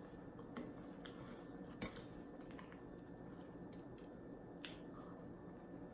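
Faint close-up chewing and wet mouth sounds of someone eating, with a few soft clicks and smacks.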